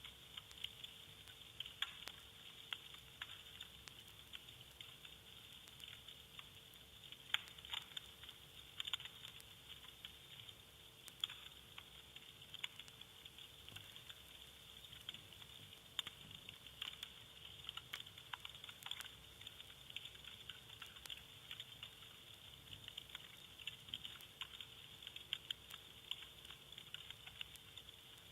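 Vinyl record surface noise: soft, irregular crackles and pops over a faint hiss, with a faint steady hum underneath.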